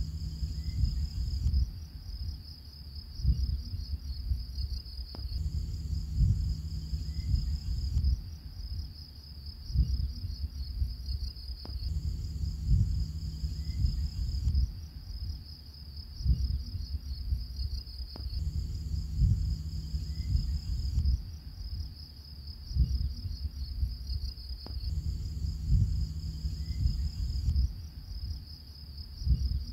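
Looped ambient background track: a steady high chirring like crickets over a low rumble with irregular thumps, the whole pattern repeating about every six and a half seconds.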